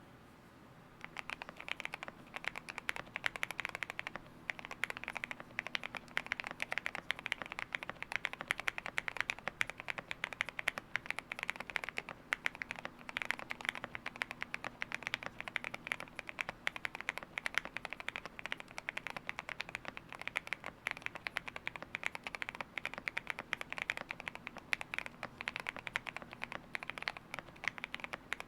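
Continuous fast typing on a GMK87 mechanical keyboard with lubed Gateron CAP V2 Milky Yellow linear switches and Cherry-profile keycaps: a dense run of key clacks starting about a second in, with a brief pause around four seconds.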